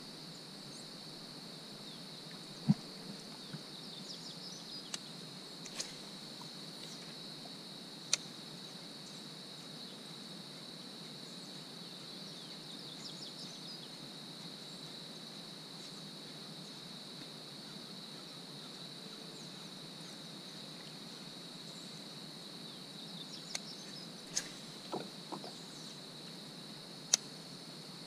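Steady high-pitched insect chorus, with a few sharp knocks now and then.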